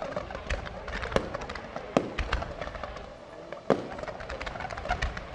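Aerial fireworks shells bursting: several loud bangs at uneven intervals among scattered smaller crackles and pops.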